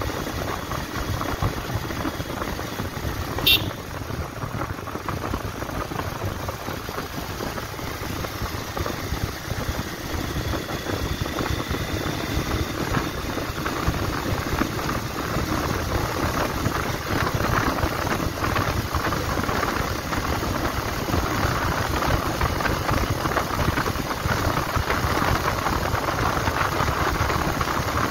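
Bajaj Pulsar 150's single-cylinder engine running steadily at road speed while the motorcycle is ridden, mixed with rushing wind and road noise, getting somewhat louder in the second half. A single sharp click about three and a half seconds in.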